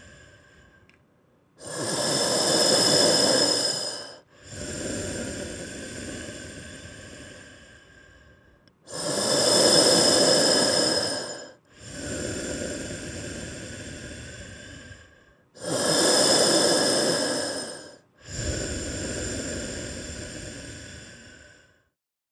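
Slow, heavy hospital-style breathing, Darth Vader-like: three full breaths, each a loud half of about two and a half seconds followed by a quieter, fading half of about four seconds, with a faint whistly hiss through it. It stops near the end.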